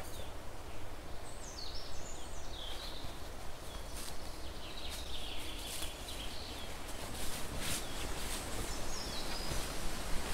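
Small birds chirping in short gliding phrases several times, with scattered rustles and clicks as a heavy cloth sheet is unfolded and handled.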